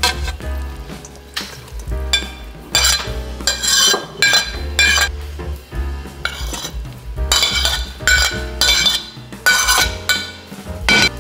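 Metal fork scraping and clinking against a ceramic plate, shredded chicken and then diced potatoes and carrots sliding off into a stainless steel mixing bowl, in a run of short, sharp scrapes.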